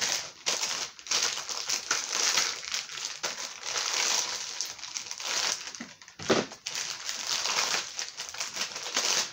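Toy packaging crinkling and rustling as hands rummage through it to find parts. The crackling is continuous and irregular, with a brief lull about six seconds in.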